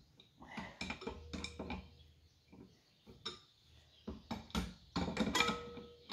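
Metal tools and engine parts knocking and clinking irregularly as a cylinder head is worked off a Lister three-cylinder diesel, a couple of the strikes leaving a short ringing tone; the busiest knocking comes near the end.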